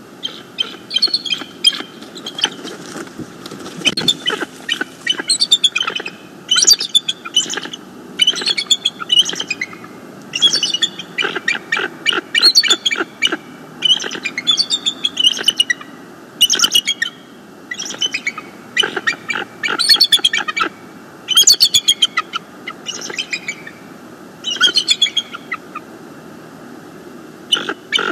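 Bald eagle calling in repeated bursts of high, rapid chittering notes, a new series every second or two, with a pause near the end before the calls resume. It is the adult's territorial calling, driving off an intruding juvenile eagle.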